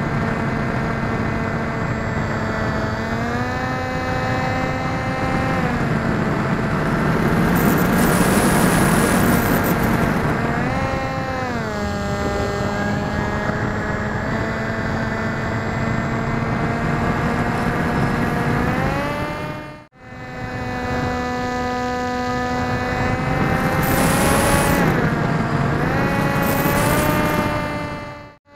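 Electric motor and propeller of an MS Composit Swift 2 RC flying wing, heard from an onboard camera: a steady whine whose pitch steps up and back down several times with the throttle. Rushes of wind noise come and go over it, heaviest about eight seconds in and again near the end.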